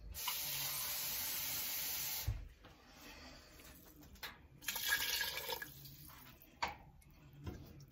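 Water running from a kitchen tap in a steady hiss for about two seconds, cut off abruptly with a knock, then liquid poured from a measuring cup into a pot of chicken feet.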